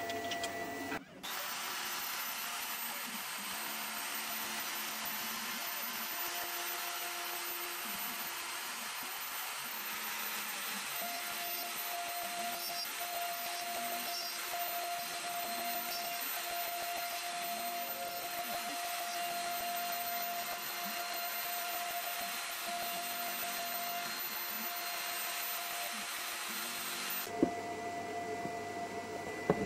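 Euro Makers Aureus 3X CNC router's spindle running with its bit carving a pocket into a wooden board: a steady whine over a constant cutting noise. The sound starts about a second in and stops abruptly near the end.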